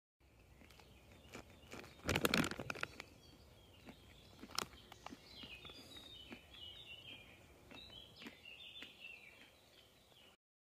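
Crinkling of a plastic zip-lock bag of trail mix being handled, a short burst about two seconds in, with a single click a little later. A small songbird sings in the background, a run of quick notes stepping down in pitch through the second half.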